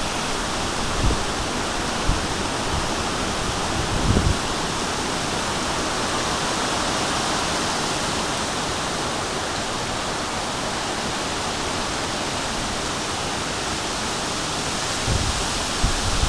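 Storm wind gust blowing steadily as an even rushing hiss, with a few brief low thumps of wind buffeting the microphone.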